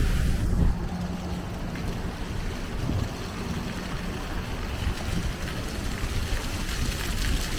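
Wind buffeting the microphone: an uneven low rumble over a noisy haze, with a low steady hum in the first half.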